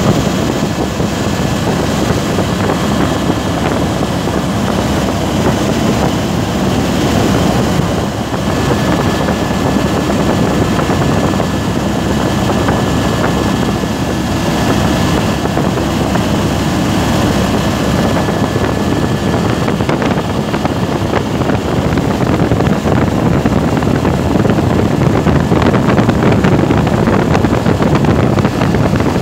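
Helicopter in flight heard from inside the cabin: the engine and rotors run with a loud, steady noise and a faint, steady high whine.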